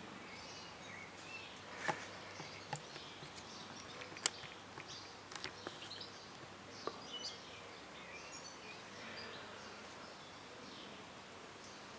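Quiet outdoor ambience: a steady low hiss with faint, scattered bird chirps, broken by a few short clicks, the sharpest about four seconds in.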